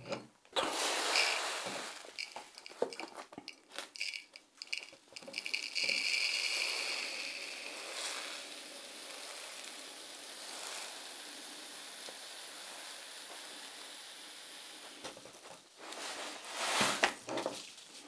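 Bentonite clay cat litter pouring from a box's spout into a measuring jug: a steady hiss of granules that swells and then tapers off. A short louder knock near the end.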